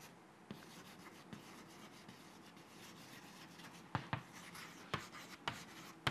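Chalk scratching faintly on a chalkboard as words are written, with a few sharp chalk taps in the second half.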